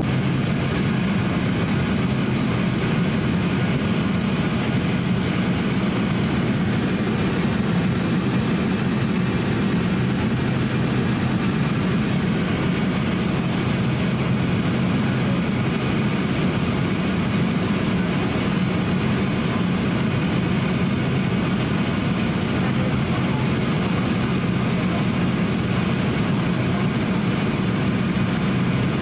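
Steady cabin noise inside a Boeing 767-300 airliner on approach to landing. The jet engines and airflow make a constant low hum over a rushing hiss, heard from a window seat beside the engine.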